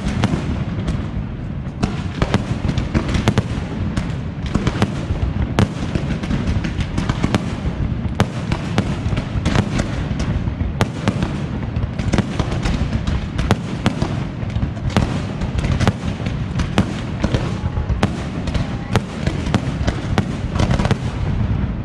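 Aerial fireworks display (a Valencian castillo) going off without pause: a dense run of sharp cracks and pops over a continuous low rumble of bursting shells.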